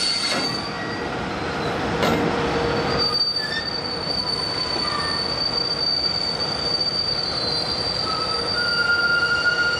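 Freight train behind an EH500 electric locomotive rolling slowly, its wheels squealing with several steady high-pitched tones over the rolling noise, with a short knock about two seconds in.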